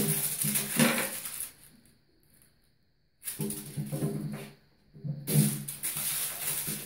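A crinkle ball skittering across a bathtub and kittens' paws scrabbling on the tub, in three bouts of noise with near silence between.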